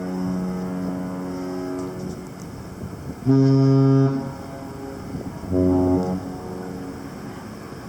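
Cruise ship horns of Carnival Glory and Carnival Breeze trading blasts in a horn battle. A held blast fades out about two seconds in, a loud short blast sounds a little past three seconds, and a shorter, lower-pitched blast follows near six seconds.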